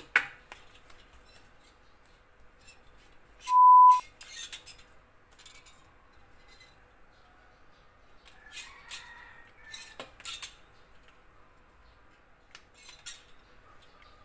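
Scattered faint knocks and scrapes of a stick or tool on a tiled floor, with a sharp knock at the start. About three and a half seconds in, a loud steady beep sounds for about half a second.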